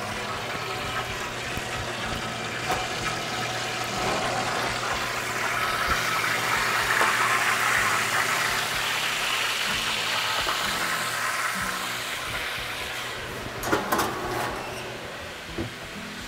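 Roast goose sizzling in hot fat in its roasting pan as it comes out of the oven: a steady hiss that swells midway and eases off, with a couple of knocks near the end.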